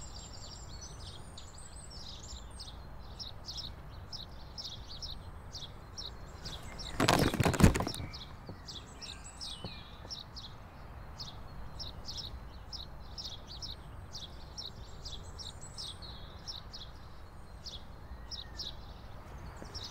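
Small birds chirping and twittering throughout, with a loud rustling burst lasting about a second about seven seconds in.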